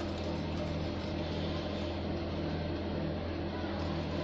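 Electric mixer running steadily, beating the wet ingredients of a cake batter, with an even hum.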